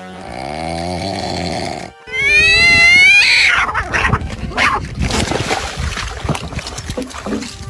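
An animal calling: a drawn-out cry, then a loud, wavering call that rises in pitch about two seconds in, followed by a few seconds of irregular scuffling noise.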